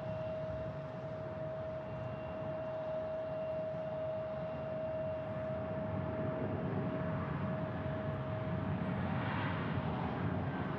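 Jet airliner engines at the airport: a steady engine hum with a constant whine, swelling somewhat louder in the second half.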